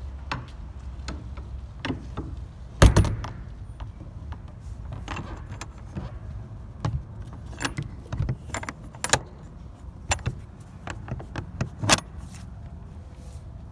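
Metal clanks and clicks from the steel latch bar and hardware of a box truck's rear door as it is handled by hand. There is a loud clank about three seconds in, then a string of lighter clicks.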